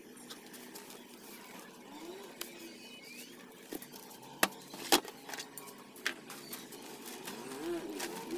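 A few sharp clicks and clinks of hand tools being handled as pliers and a wire brush are picked up, with faint bird calls in the background.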